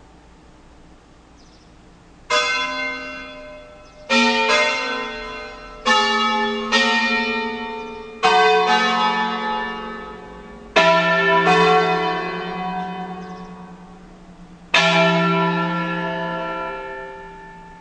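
A ring of five Ambrosian-system church bells tuned E3, F#3, G#3, A3 and B3 (four cast by Capanni, the A3 by Pruneri) is rung in concerto style. About two seconds in, single bell strokes begin, around ten in all, spaced irregularly and some in quick pairs, each left to ring out before the next.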